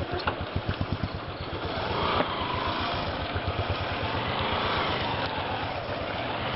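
Motorcycle engine running slowly, an even rapid putt-putt from the exhaust, as the bike creeps down a rough dirt trail. There is one sharp click about two seconds in.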